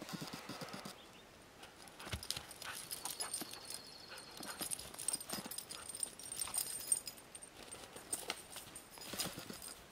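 A dog's paws stepping and trotting over crusty snow and dry pine litter: scattered, irregular light footfalls and crunches.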